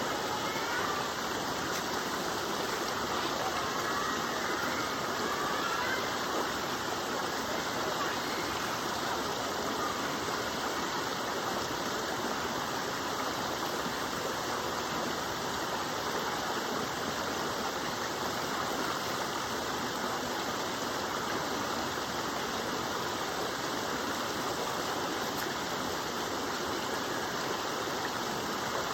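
Waterfall: water falling and rushing in a steady, unbroken roar with no change in level.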